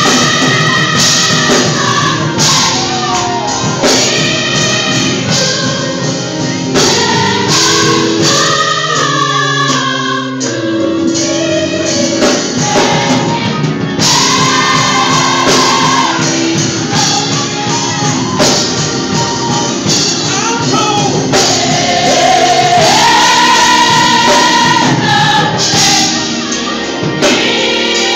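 A large gospel choir singing together to a band accompaniment with a steady percussive beat.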